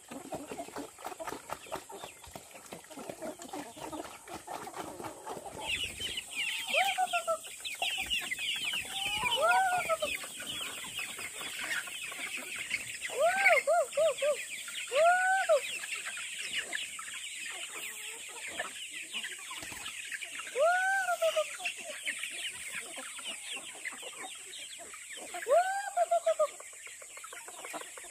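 Chickens calling: short arching clucks that rise and fall in pitch come every second or two, over a dense high-pitched chirping that starts about six seconds in.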